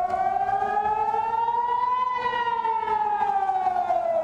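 Civil-defence air-raid siren sounding a war alert: one long wail that rises in pitch for about two seconds, then falls.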